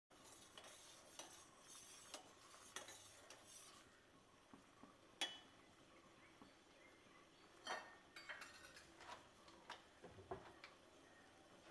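Faint sound of sugar syrup with cardamom and saffron coming to a boil in a steel pot: a light hiss with scattered small clicks and pops.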